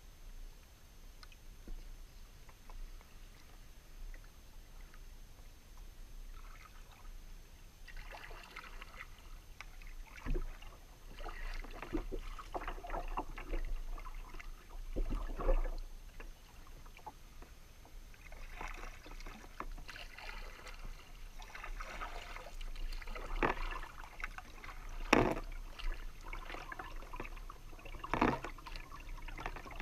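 Kayak paddle working calm river water: quiet at first, then from about seven seconds in, irregular paddle strokes, with the blade dipping, splashing and dripping and a few sharper splashes, the loudest a little past the middle.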